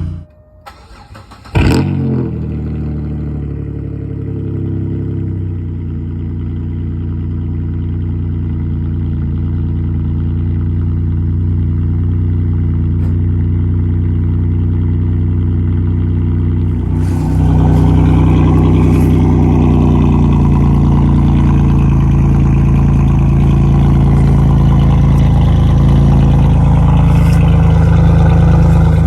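A 2004 Chevrolet Monte Carlo SS's 3.8-litre V6 firing up about a second and a half in on its first start with new headers, then idling steadily. The sound gets louder and harsher about 17 seconds in.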